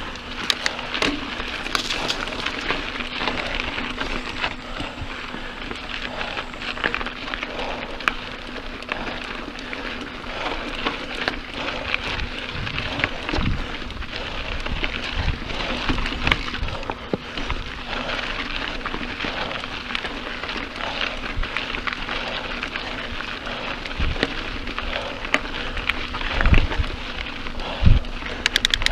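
Mountain bike tyres rolling over dirt and gravel singletrack: a continuous crackling rattle with scattered clicks, and a couple of heavier knocks from bumps near the end.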